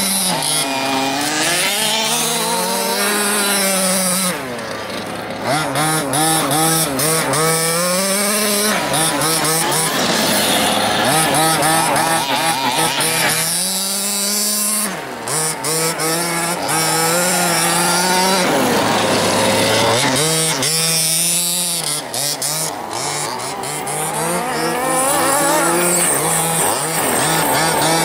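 Two-stroke petrol engines of two 1/5-scale radio-controlled cars, revving up and dropping back again and again as the cars accelerate and slow, at times overlapping.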